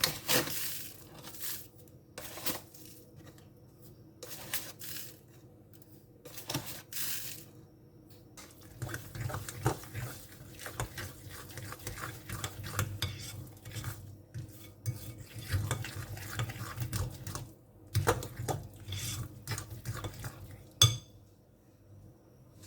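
Utensil clinking and scraping in a mixing bowl: a few separate strokes at first, then several seconds of quick, continuous stirring. A single sharp tap on the bowl near the end is the loudest sound.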